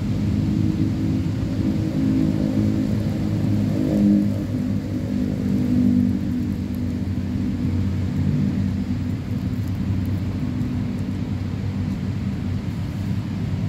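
A steady low rumbling hum, loudest in the bass, keeping on with small swells.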